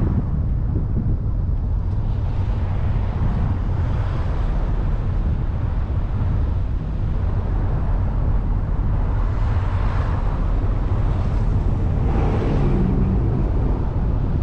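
Wind buffeting the microphone over the steady low rumble of a car driving along at road speed, with two brief swells of hiss about ten seconds in and a couple of seconds later.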